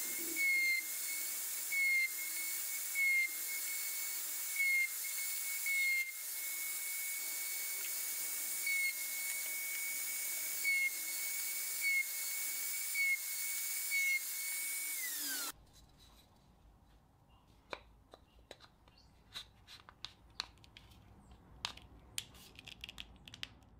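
Table-mounted router running with a steady high whine, growing louder in short surges every second or two, then switched off about fifteen seconds in, its pitch falling as it spins down. Faint scattered clicks and taps of wood follow.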